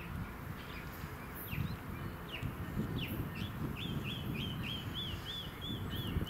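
A bird calling: a few downward-sweeping notes, then a quick run of repeated rising-and-falling notes, about three a second, over a steady low background rumble.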